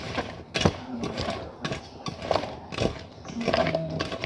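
Raw potato slices being tossed and mixed by hand in a stainless steel pot: irregular knocks and clatter of the pieces against the metal.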